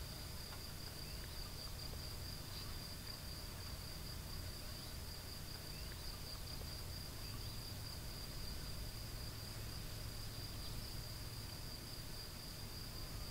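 A steady, unbroken high-pitched insect trill over a low steady rumble, with a few faint short chirps scattered through.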